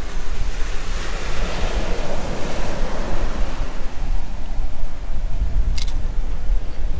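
Wind buffeting the microphone over the wash of surf breaking on a beach, with one short crackle about six seconds in.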